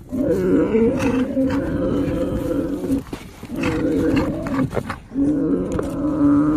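Yak calling: a long, steady, low call of about three seconds, a shorter one of about a second, and a third starting about five seconds in that carries on past the end.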